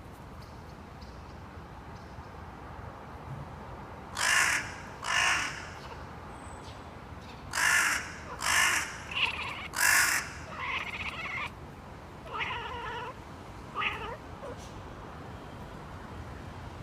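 Crows cawing, five harsh caws in two groups, and a house cat answering with short, pitch-bending meows between and after them as it tries to imitate the caws.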